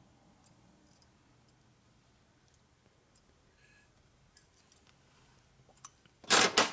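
Faint scattered clicks of pliers working a small tabbed metal lock plate, then near the end a loud clatter of two sharp knocks close together.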